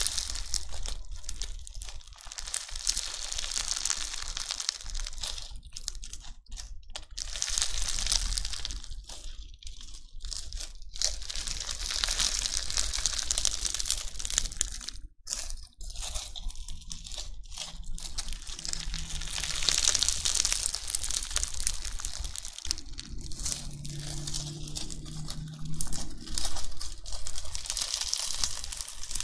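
Crunchy bingsu slime being worked by hand, its small plastic beads crackling and crunching in repeated swells that rise and fade.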